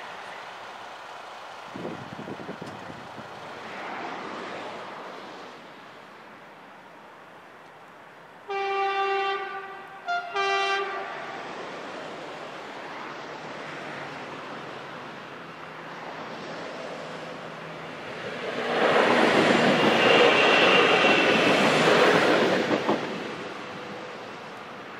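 CRRC Sifang diesel-electric multiple unit sounding its horn in two blasts, a longer one and then a short one, as it approaches the level crossing. About eight seconds later the train passes with a loud rush of engine and wheel noise that builds and then fades.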